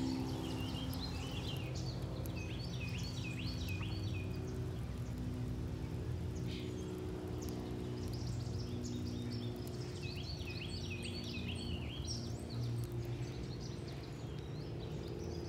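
A songbird singing two runs of quick repeated whistled notes, one about a second in and another around ten seconds in, over a steady low hum.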